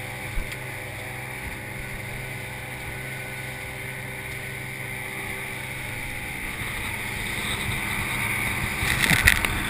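Johnson outboard motor running at speed as the boat planes, with the steady rush of the wake and spray. The sound grows louder toward the end, and a few sharp knocks and splashes come near the end.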